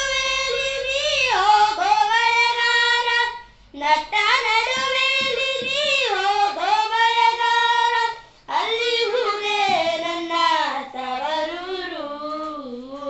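A boy singing a Kannada folk song unaccompanied into a handheld microphone, in long drawn-out phrases with short breaths about three and a half and eight and a half seconds in.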